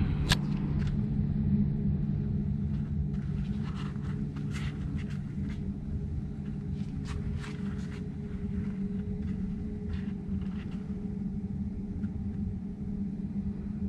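Steady low machine hum, with scattered soft rustles and clicks in the first half as a roll of toilet paper is unrolled across tiles.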